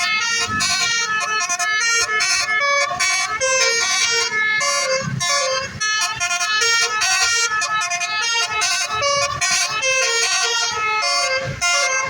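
Bus's basuri multi-tone horn playing a tune, note after note in quick steps of pitch, cutting off abruptly near the end.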